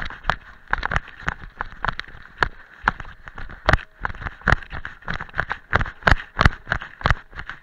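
A trail runner's quick footfalls running downhill on a path of dry fallen leaves and stones, about three steps a second, picked up close by a harness-mounted camera.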